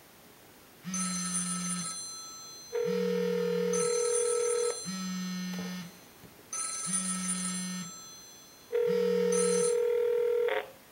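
Cell phone ringing on an incoming call, with five buzzy ring pulses of about a second each, a second apart. Twice, about two seconds of steady ringback tone from the calling handset sounds over it. The ringing stops near the end as the automatic answering shield picks up the call.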